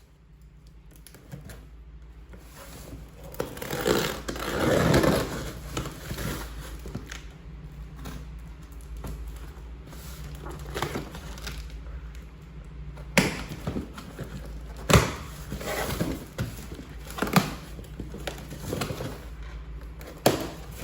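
Cardboard box and packaging being handled during unboxing: rustling and scraping, loudest about four to five seconds in, then scattered sharp knocks and taps as parts are lifted out and set down.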